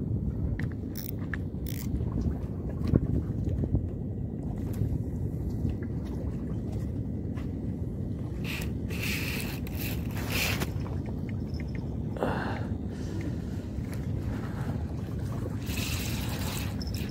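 Wind rumbling on the microphone over gently lapping sea water, with a few brief rushing, splashy noises about halfway through and again near the end.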